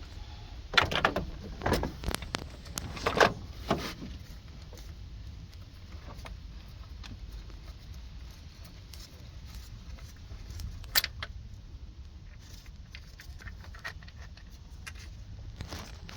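Metal hand tools and engine parts clinking and being handled: a quick run of clinks and knocks over the first few seconds, then a single sharp click about eleven seconds in, over a low steady hum.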